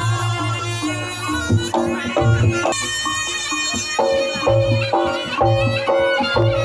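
Reog Ponorogo gamelan music played live: a slompret shawm's reedy melody over rhythmic kendang drum strokes.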